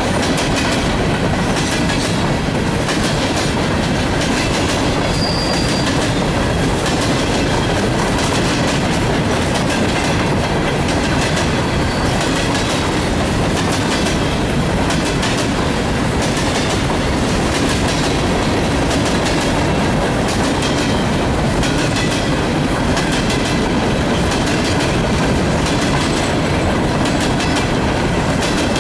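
Empty steel coal hopper cars of a freight train rolling past close by: a steady rumble of wheels on rail, with clickety-clack as the wheels pass over the rail joints.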